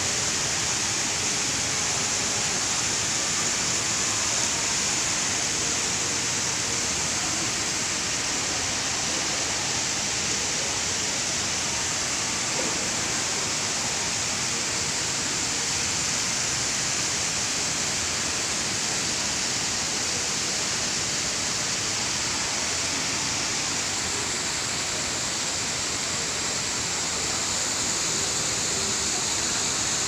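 Artificial rock waterfall: a steady rush of water falling into its pool, even throughout.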